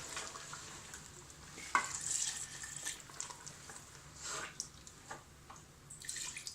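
A spoon stirring chicken korma in a cooking pot as water for the gravy is mixed in: scattered scrapes and knocks against the pot over a light sizzle, with one sharp knock a little under two seconds in.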